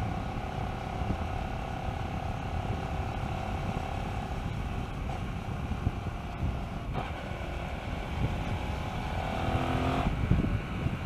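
Hyosung GT650R's V-twin engine pulling the motorcycle along at a steady speed, heard from a helmet camera with wind rush over the microphone. Near the end the revs climb for about a second, then fall away suddenly.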